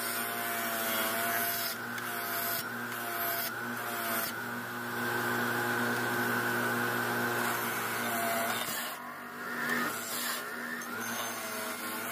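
Bench grinder running steadily with a small metal engine part pressed against its spinning wheel, a continuous grinding hiss over the motor's hum as paint and grime are stripped off the part. The grinding eases off briefly about nine seconds in, then picks up again.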